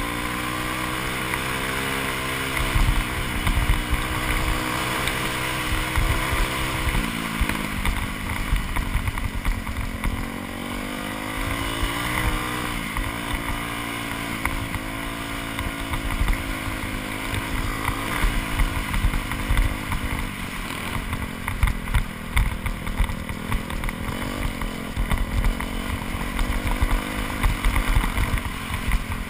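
2001 Yamaha YZ426F dirt bike's four-stroke single-cylinder engine running under load as it is ridden, its note rising and falling with the throttle and dropping about seven seconds in.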